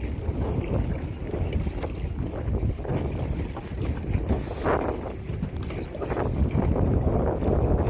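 Wind buffeting the microphone, over the wash of water around a kayak on the move.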